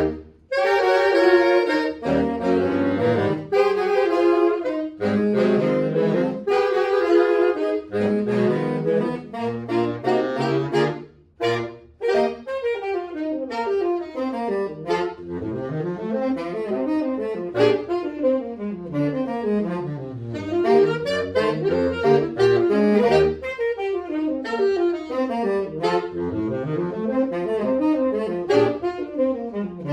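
Saxophone quartet playing: held chords with short breaks for about the first ten seconds, a brief rest around eleven seconds in, then fast rising and falling scale runs passed between the parts.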